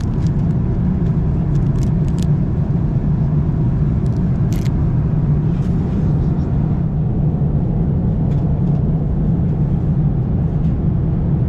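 Steady rumble of airliner cabin noise in flight aboard an Airbus A330-300. A few short crinkles of a plastic packet being handled come in the first two seconds and once more about four and a half seconds in.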